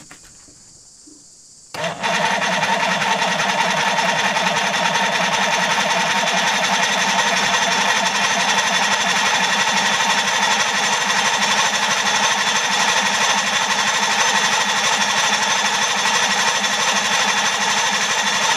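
Electric starter cranking a 1964 Evinrude Starfire 75 two-stroke outboard, starting abruptly about two seconds in and running steady and rhythmic without the engine catching, a sign it is short of fuel.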